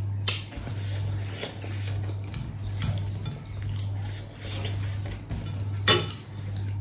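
Plates and eating utensils clinking and scraping during a meal, with a sharper clink about six seconds in. A steady low hum runs underneath.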